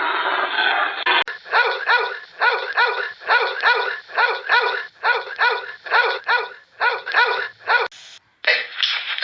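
A dog barking rapidly and repeatedly, a bit under three short barks a second, after about a second of steady hissing noise.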